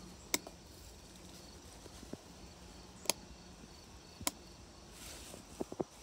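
Three sharp clicks of a push-button dimmer switch for LED strip lighting being pressed, spaced a second or more apart, with a couple of fainter ticks near the end.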